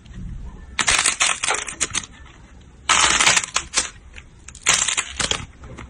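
Slime squeezed and worked by hand, giving three bursts of crackling, popping air-bubble sounds with small clicks between them.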